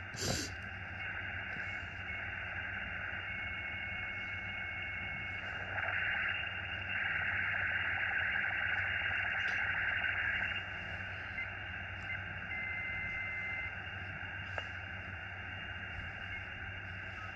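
Xiegu X6100 HF transceiver's receiver hiss from its speaker in single-sideband mode, cut off above about 2.7 kHz, as it is tuned slowly across the 20 m band. There is a click and a quick falling sweep at the start, a louder stretch of noise in the middle, and two short steady whistles where the tuning passes a carrier.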